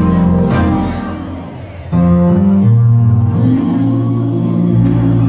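Live band music led by guitar: a held chord dies away about a second and a half in, then the band comes back in suddenly and loudly just before the two-second mark and holds a sustained chord.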